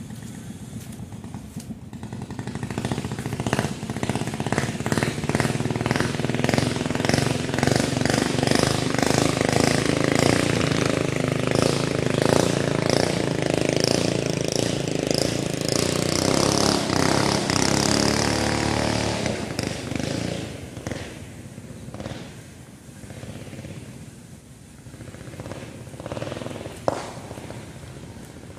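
A motor engine with a fast, even pulsing beat grows louder, runs loud for about fifteen seconds, then fades away. A single sharp knock comes near the end.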